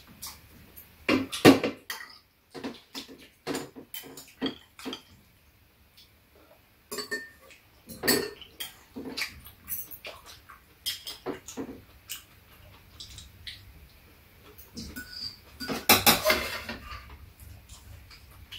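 Chopsticks and metal spoons clinking and tapping against bowls and a metal serving tray while eating, in scattered sharp clicks. There is a busier run of clinks about a second in and another near the end.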